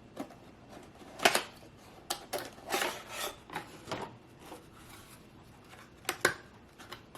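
Hands handling hard computer parts and packaging: scattered sharp clicks and taps with short rustling and scraping, the loudest about a second in and near six seconds.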